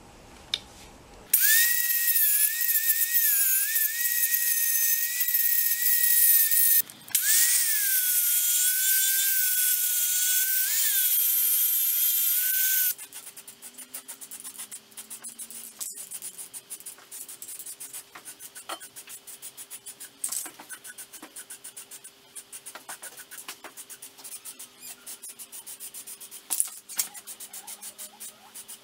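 Angle grinder grinding down weld spots on a steel bench vise body, its loud whine wavering and sagging in pitch. It stops briefly about 7 seconds in, spins up again and cuts off about 13 seconds in, leaving fainter scattered clicks.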